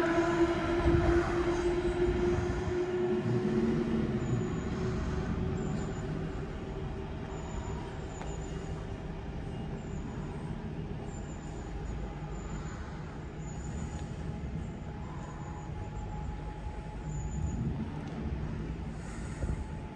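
Transport for Wales Class 230 (ex-London Underground D Stock) train pulling away, its drone sinking slightly in pitch and fading into the distance over the first several seconds. A low steady rumble remains after it.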